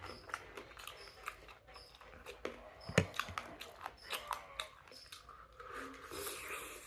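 Chewing and biting sounds of eating, with scattered wet clicks and one sharp knock about three seconds in. Short high chirps repeat about once a second.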